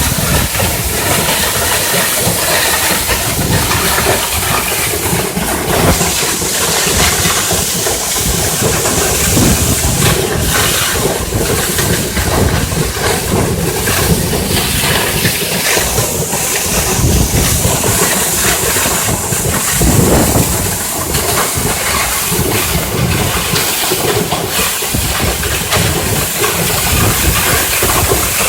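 Waterfall: water pouring and crashing down in a loud, steady rush.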